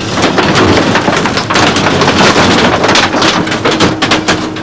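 Avro Shackleton airframe being crushed and torn apart by a scrapyard grab: a dense run of metal crunching and tearing with many sharp cracks. A steady hum comes in near the end.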